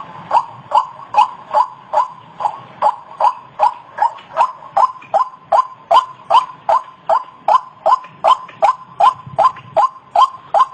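White-breasted waterhen (ruak-ruak) calling: a monotonous, evenly paced series of short notes, about two and a half a second.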